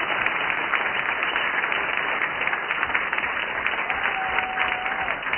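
Audience applauding, a steady dense clatter of many hands clapping. A faint held note sounds for about a second near the end.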